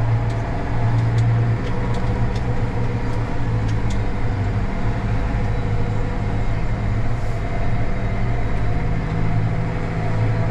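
Tractor's diesel engine running steadily at about 1,600 to 1,700 rpm while driving, heard from inside the cab, with a few faint clicks over the engine hum.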